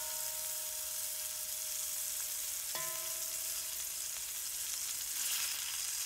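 Beef eye round roast sizzling as it browns in hot olive oil in a stainless steel pot. Metal tongs clink against the pot once about three seconds in, leaving a ringing tone that fades over a second or so.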